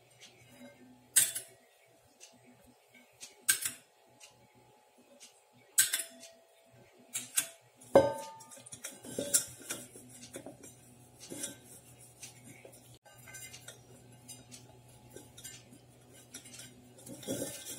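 Stainless steel vessel being handled and greased by hand: scattered clinks and knocks of steel on steel and on the counter. The loudest comes about eight seconds in and rings briefly.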